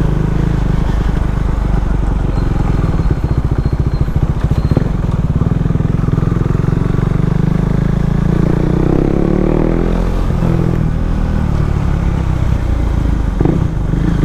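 Motorcycle engine running steadily while riding, with wind rush on the microphone; the engine note shifts about eight seconds in.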